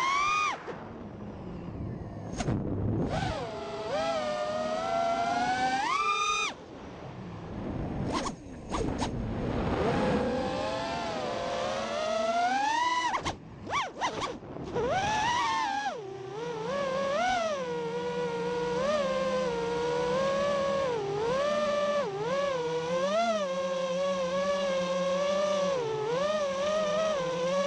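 Four brushless motors and props of an FPV racing quad (T-Motor F60 Pro 2500kv motors spinning DAL Cyclone 5046 props) whining, the pitch sweeping up sharply with each throttle punch. The whine drops out briefly a few times as the throttle is chopped. In the second half it settles into a lower, wavering whine with constant small throttle corrections.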